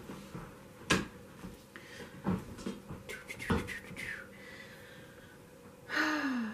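Handling noise of clicks and taps: a sharp one about a second in and a quick cluster around three and a half seconds. Near the end comes a short hum of a woman's voice that falls in pitch.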